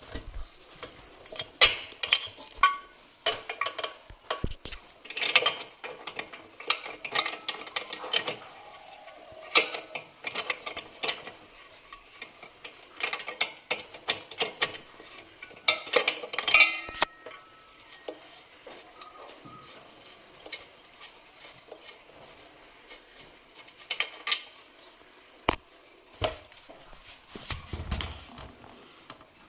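Metal hand tools clicking and clanking at irregular intervals as the spark plug is taken out of a two-stroke motorcycle engine for cleaning.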